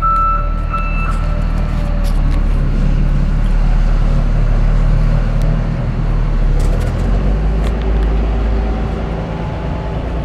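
Cummins GTA28 natural-gas engine of a 500 kW generator set running steadily with a loud, low-pitched drone. A brief high whine sits over it in the first second.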